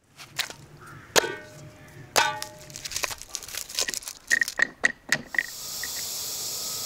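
A run of sharp knocks and clinks, with two ringing metal clangs about one and two seconds in, then, from about five and a half seconds, a steady high hiss of steam escaping from the Afghan cauldron's pressure valve.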